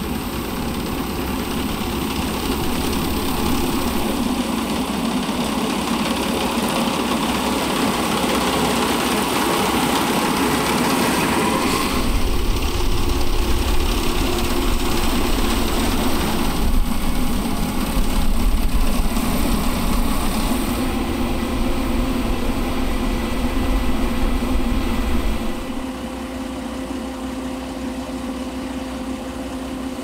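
Rice combine harvester running as it cuts and threshes rice: a steady engine and machinery drone. It changes character about twelve seconds in and drops a little in level near the end.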